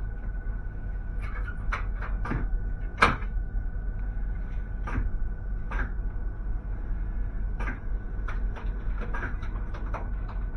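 ÖBB Nightjet sleeping car rolling slowly out of a station: a steady low rumble with irregular sharp clacks and knocks as the wheels run over the points, the loudest about three seconds in. A faint steady whine fades out about halfway through.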